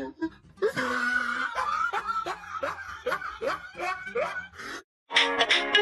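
A person snickering in a run of short, rising laughs. Near the end the sound cuts out briefly and violin music starts.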